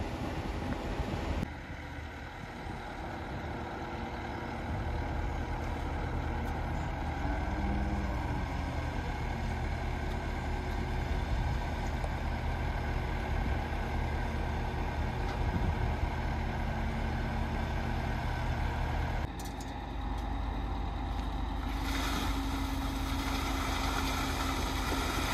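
Heavy diesel truck engine running steadily at a concrete pour, changing abruptly at cuts about a second and a half in and again about three-quarters of the way through.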